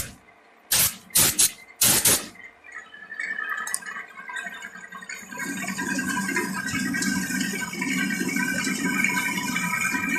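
Three sharp clicks in the first two seconds, then from about five seconds in a milling machine running with an end mill cutting, a steady rattling, scraping noise with a few steady tones.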